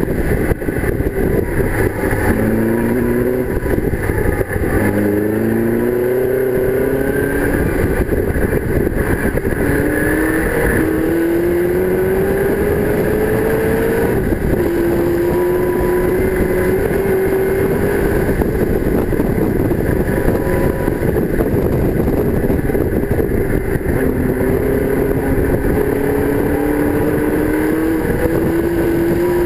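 TVR-built 4.5-litre AJP V8 of a TVR Tuscan Challenge race car, heard from its open cockpit at speed. The engine rises in pitch on each pull and drops suddenly several times. Heavy wind and road noise run underneath throughout.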